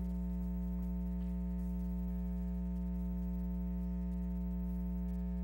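Steady electrical mains hum: a low drone with a stack of evenly spaced higher tones above it, unchanging in level.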